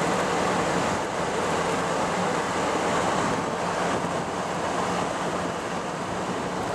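Inside a 1978 Triumph Spitfire 1500 cruising at a steady speed: loud, even wind and road rush over the steady drone of its four-cylinder engine.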